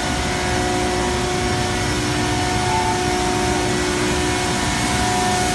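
EREMA plastic recycling plant running: a steady machinery drone with a few constant tones held above it.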